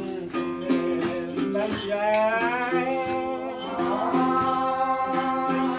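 Đàn tính, a long-necked gourd lute, plucked in a steady repeating figure of low notes. From about two seconds in, a voice sings long, wavering held notes over it.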